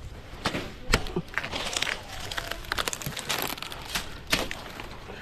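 Dry coconut fronds crackling and rustling with irregular sharp knocks, as fronds are cut and handled at the top of a coconut tree.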